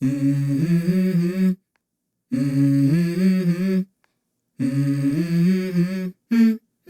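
Music: a voice humming a short melody in three phrases of about a second and a half each, separated by silent gaps, with a brief extra note near the end.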